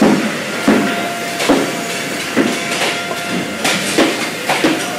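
Hammer blows on oak barrels and their metal hoops: about nine sharp, irregular strikes, roughly one every half second to a second, over a steady hiss of workshop noise.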